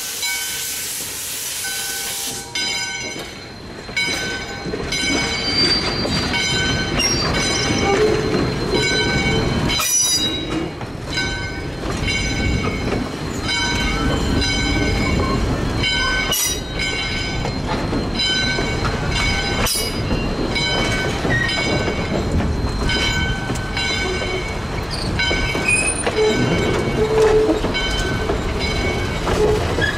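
Steam locomotive with its train rolling past with a steady rumble, its bell ringing about once a second. A steam hiss at the start stops about two seconds in.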